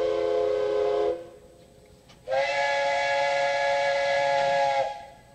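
Two steam locomotive whistles, those of 8620-class No. 58654 and D51 No. 170, answering each other. One long chord-like blast cuts off about a second in. After a short pause the other, higher-pitched whistle sounds for about two and a half seconds and stops.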